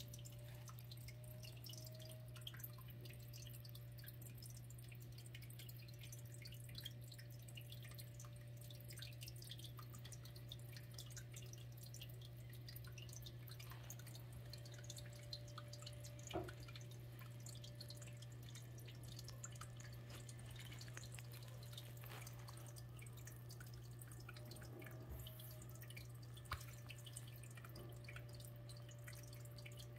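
Quiet room tone: a steady low hum with faint scattered ticks, and two sharper clicks, one about halfway through and one near the end.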